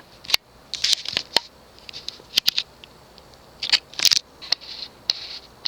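Handling noise from a boxed ceiling fan's parts: irregular bursts of rustling and crackling with several sharp clicks.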